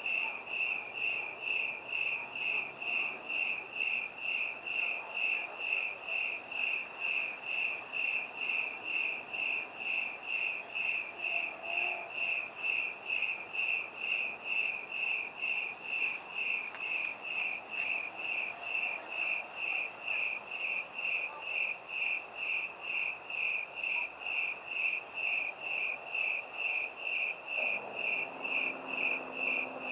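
A cricket chirping steadily in even pulses, about two chirps a second, each a high, ringing note. Faint low city background hum lies under it, with a low droning sound coming in near the end.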